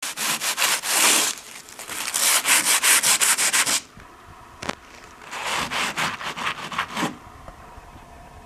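A hand-held grey pad rubbed hard back and forth over rough plaster, scratchy strokes several times a second in three bouts, with a single sharp click between the second and third.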